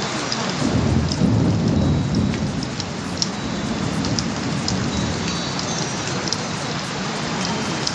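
Steady rain-like rushing noise with scattered small ticks. A low rumble, like thunder, swells about a second in and fades out by about three seconds.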